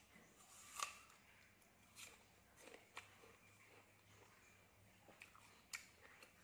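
A person biting into and chewing a crisp red apple: one sharp crunch about a second in, then a few fainter crunches at irregular intervals.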